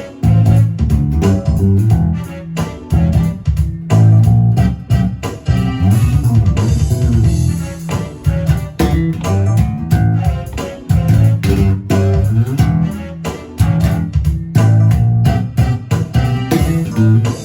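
Four-string electric bass guitar played unaccompanied: a continuous line of plucked notes and short riffs, with crisp attacks and a deep, full low end.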